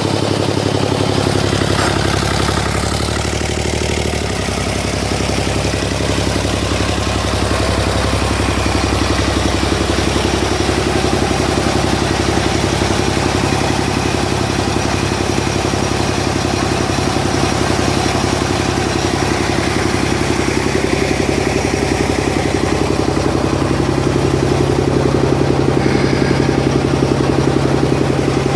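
An engine running steadily, with a clattering edge; its pitch shifts about four seconds in.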